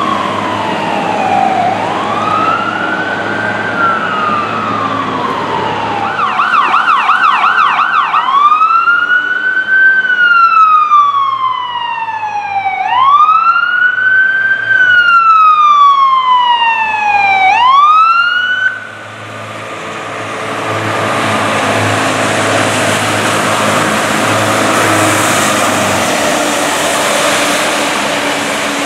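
Fire truck siren on a slow rise-and-fall wail, switching for about two seconds to a fast yelp and back to the wail. About two-thirds of the way through the siren cuts off, leaving the truck's engine and the hiss of its tyres on the wet road as it passes.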